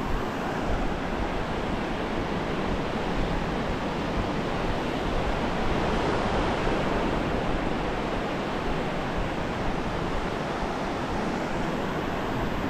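Ocean surf washing steadily onto a sandy beach.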